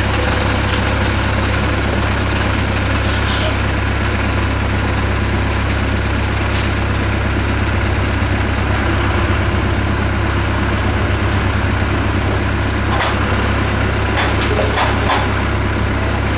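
Heavy diesel engines running steadily at idle: a Doosan DX55W wheeled excavator close by, with a TMT dump truck manoeuvring behind it. A few short, sharp noises come near the end.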